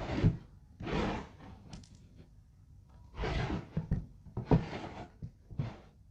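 Wooden parts being handled: about five short scraping sounds, with sharp knocks near the start and about four and a half seconds in.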